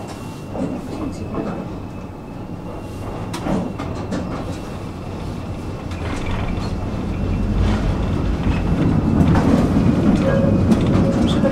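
Tram running on its rails, a steady low rumble with a few sharp clicks, growing clearly louder from about halfway through. A faint steady high whine sounds during the first three seconds.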